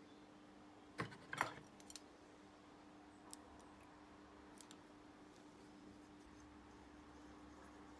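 Light clicks and taps of a brass cleaning rod with a bronze wire bore brush being handled: a quick cluster of clicks about a second in, a single click a couple of seconds later, over a faint steady hum.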